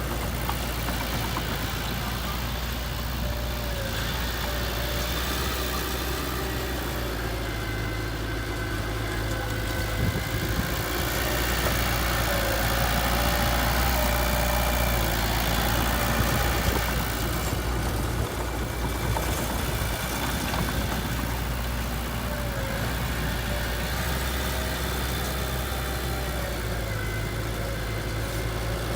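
Diesel engine of heavy machinery running steadily, near idle. It grows somewhat louder for several seconds in the middle, then settles back.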